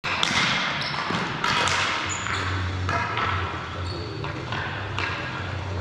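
Ball hockey play echoing in a gym: sticks clacking against the ball and the court floor several times, with brief sneaker squeaks. A steady low hum runs underneath.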